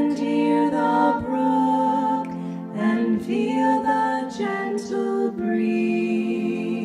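Slow hymn singing, the words drawn out, over a steady held accompaniment note.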